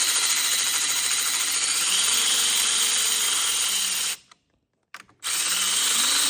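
A handheld power driver runs steadily, driving nuts down onto the steering-wheel studs. It stops about four seconds in and starts again about a second later on the next nut.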